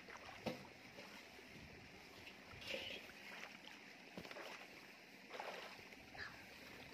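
Faint sloshing and splashing of shallow muddy water as it is waded through and scooped with a woven bamboo basket, in a few short, separate splashes.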